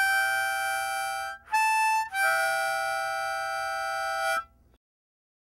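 Music on a free-reed instrument with a harmonica-like tone: three long held chords, with short breaks about a second and a half and two seconds in. The last chord is held until it cuts off about four and a half seconds in.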